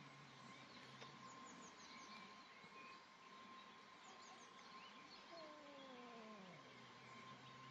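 Faint caterwauling of a cat in mating season: the low held end of one yowl in the first second or so, then about five seconds in a second yowl that slides down in pitch and settles into a low drawn-out moan. Small birds chirp faintly behind it.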